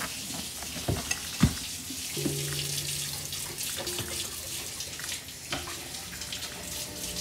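Tap water running steadily into a kitchen sink during dishwashing, with a few sharp clinks and knocks of dishes.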